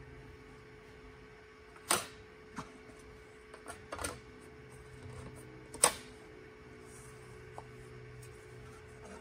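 Sheet-metal cover of a Garmin GNS480 unit clicking and clattering against the chassis as it is worked loose and lifted off: two sharp metallic snaps about two and six seconds in, with lighter clicks in between.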